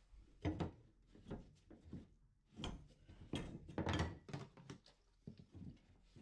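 A rag wiping hot solder off copper pipes: about a dozen irregular rubbing and scuffing strokes with light knocks, some of them in quick pairs.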